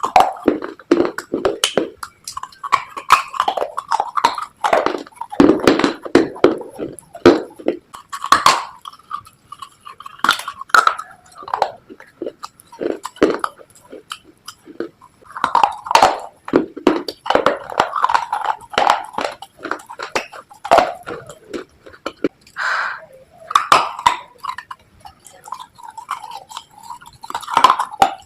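Close-miked biting and chewing of hard, earthy slate pieces: a steady run of sharp, irregular crunches and crackles with wet mouth sounds between them.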